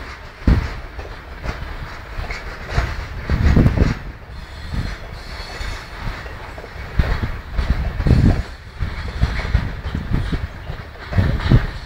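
Railway wagons rolling over the tracks: a steady rumble broken by irregular heavy knocks and clanks from wheels and couplings, several times over.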